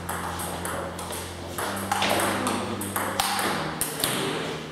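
Table tennis ball clicking off the paddles and bouncing on the table during a fast rally: a quick series of sharp ticks about every half second. A steady low hum runs underneath.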